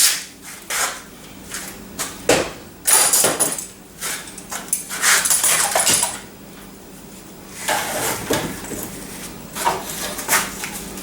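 Irregular clunks, scrapes and rattles of hard objects being handled and set down, with a faint steady hum underneath.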